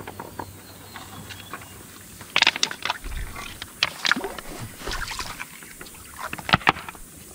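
Shallow river water splashing and sloshing in several short bursts over the last five seconds, as a person moves through it.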